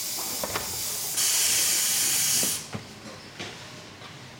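Compressed air hissing from pneumatic assembly equipment, louder after about a second, then cutting off sharply. A few light knocks of chair parts being handled follow.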